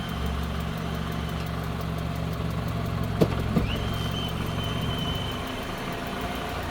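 Car engine idling in neutral with a thin, high squeak that comes and goes: it sounds for about a second and a half, stops, then returns near four seconds for about two seconds. The squeak appears only in Park and Neutral, and the owner likens it to a belt. There is one sharp click just past three seconds.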